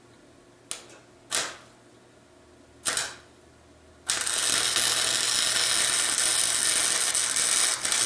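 Electric arc welding on a garden tractor's engine mount: three short arc strikes in the first three seconds, then a steady crackling weld from about four seconds in.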